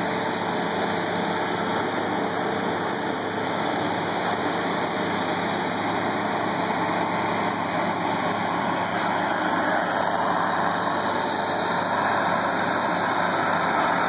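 Engine of a ride-on concrete power trowel running steadily, growing a little louder in the last few seconds.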